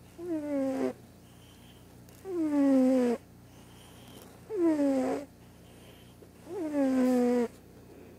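Domestic cat snoring in its sleep: four loud, pitched snores about two seconds apart, each dropping in pitch as it goes.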